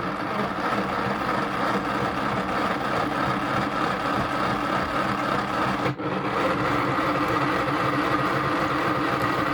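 Small electric motor of a toy washing machine running steadily, turning its drum through a wash cycle with a light load of water, a constant mechanical hum.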